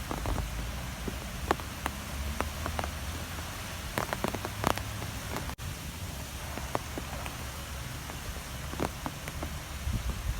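Strong wind blowing with a steady low rumble, with scattered light taps and patters throughout. The sound cuts out for an instant about halfway.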